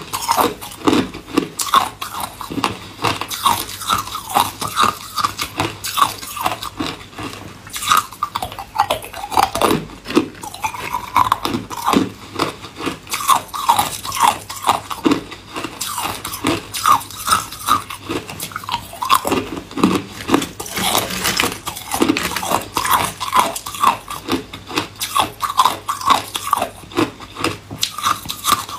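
Hard ice cubes being bitten and crunched between the teeth: continuous chewing with several sharp cracks a second.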